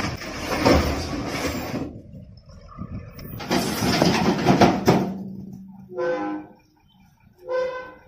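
Solid concrete blocks sliding off a tipper truck's raised bed and tumbling onto a pile in two loud bursts, a grinding scrape full of knocks and clatter. Near the end come two short pitched calls.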